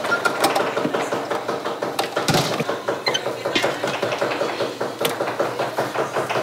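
Knife chopping quickly on a cutting board, a rapid, uneven run of knocks several a second, as vegetables are finely minced.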